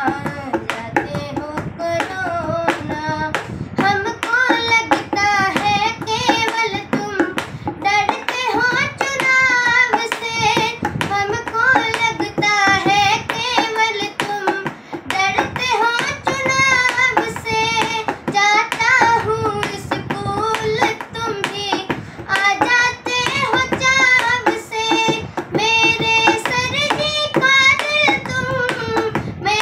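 A boy singing a Hindi song solo, with short hand taps sounding along with the singing.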